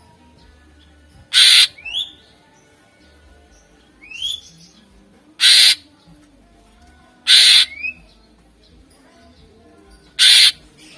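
Cucak ijo (green leafbird) calling: four loud, harsh rasping calls a few seconds apart, each paired with a short rising whistle. These are the harsh 'shots' that bird keepers play to provoke other leafbirds.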